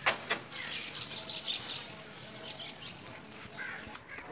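Birds chirping in short, scattered calls, with two sharp clicks in the first half second.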